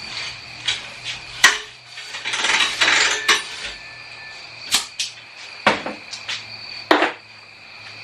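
Sharp clicks and knocks of tools and hardware being handled, with a rustling, scraping stretch a couple of seconds in, over a steady high cricket trill.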